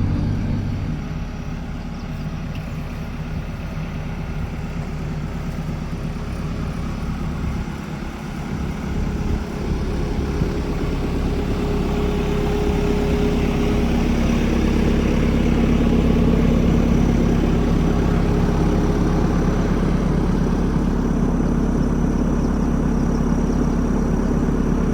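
JCB 3CX backhoe loader's diesel engine running steadily. It dips briefly about eight seconds in, then revs up and runs louder from about ten seconds on.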